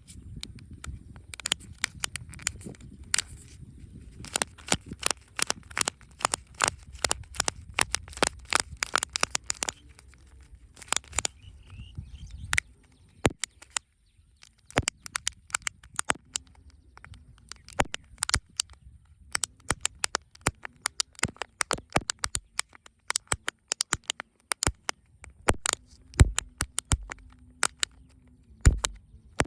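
Close-up handling and opening of plastic surprise eggs and candy packaging: many irregular sharp clicks, taps and crackles, over a low rumble that stops about halfway through.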